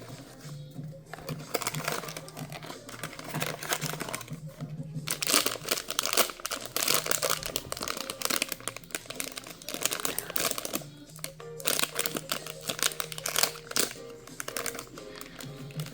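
Plastic and paper blind-box packaging crinkling and rustling as it is handled and opened, in dense irregular bursts for most of the stretch, over background music.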